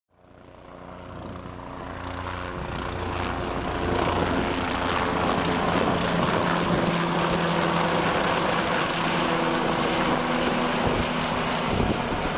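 A helicopter flying low overhead, its rotor and engine running steadily. The sound swells over the first few seconds and then holds.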